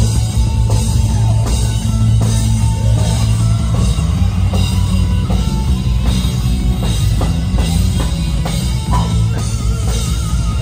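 Rock-style band music with drum kit, bass and guitar playing steadily.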